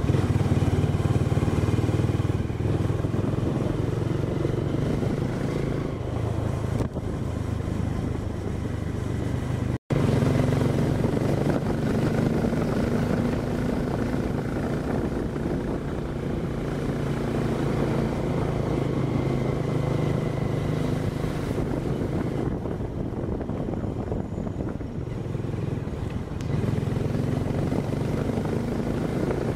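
Motorbike engine running steadily while riding, with a short break about ten seconds in.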